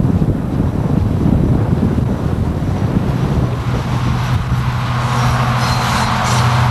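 Wind rumbling on the microphone, giving way about three seconds in to a steady, low engine drone with rising road or rail hiss.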